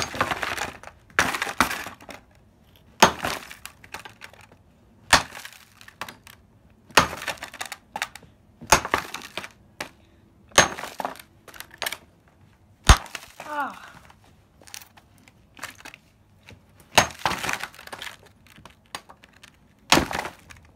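A small hammer striking a geode again and again to crack it open, a sharp crack roughly every second at an uneven pace.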